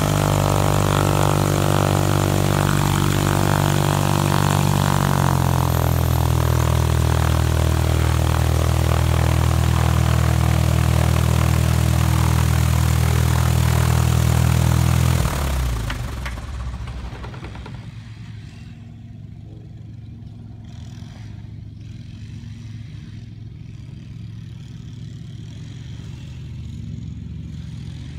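Diamond DA40 Diamond Star light aircraft's four-cylinder engine and propeller running at low power on the ground, settling a little lower in pitch about five seconds in. About halfway through the engine is shut down: the sound cuts off and dies away over a couple of seconds as the propeller stops, leaving only a faint low hum.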